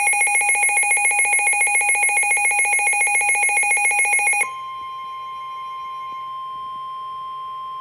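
NOAA weather radio receivers' fast pulsing electronic alert beep, which cuts off about four and a half seconds in. It gives way to the steady single-pitched 1050 Hz Warning Alarm Tone through the radio's speaker, which signals a warning, here a severe thunderstorm warning.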